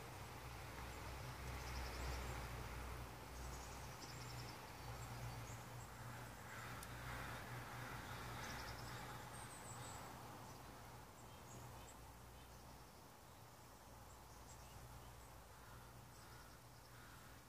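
Faint outdoor ambience: insects chirping in short scattered trills over a low steady hum.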